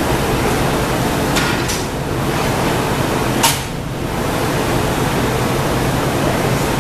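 Steady noise of a glassblowing studio's fans and equipment, with a few short sharp sounds about one and a half seconds in and again near three and a half seconds, as the blowpipe is rolled on the bench rails and the hot glass is shaped with a hand tool.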